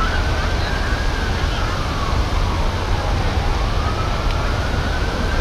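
A distant emergency-vehicle siren wailing, its pitch rising and falling slowly over several seconds, over a steady low rumble.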